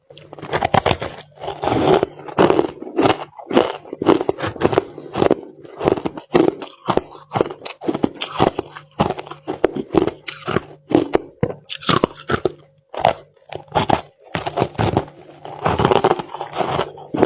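Crushed ice being bitten and chewed close to the microphone, in a dense run of irregular crunches with brief pauses.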